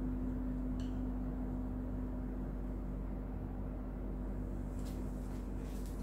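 Steady low hum of room noise, with a brief squeak about a second in and faint scratchy strokes near the end from a marker writing on a whiteboard.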